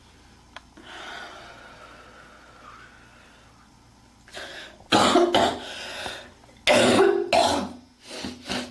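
A girl coughing hard. After a few seconds of faint breathy noise come loud, harsh coughs in quick groups, about five seconds in and again about seven seconds in, then two smaller coughs near the end.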